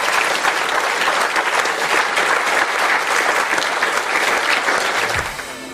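Conference audience applauding, dense steady clapping that fades out about five seconds in.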